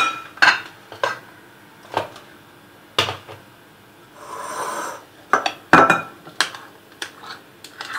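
A metal spoon clinks against the side of a glass bowl while stirring a thick, creamy cheesecake batter. The taps are irregular, come more quickly in the last few seconds, and there is a soft rushing sound about four seconds in.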